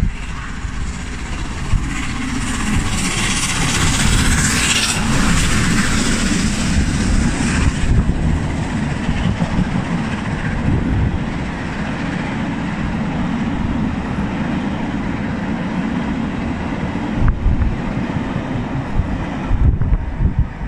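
Steam-hauled passenger train of Mark 1 coaches passing at speed behind A1 locomotive 60163 Tornado: a steady rumble of wheels on rail, with a brighter hiss from about two to eight seconds in.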